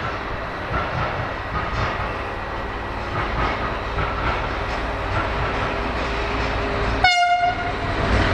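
Diesel locomotive hauling tank wagons approaching with a steady rumble, then about seven seconds in a single short horn blast of about half a second.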